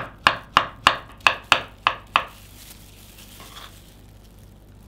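Kitchen knife slicing peeled bananas on a wooden cutting board: about eight quick chops, roughly three a second, the blade knocking on the board, stopping a little over two seconds in.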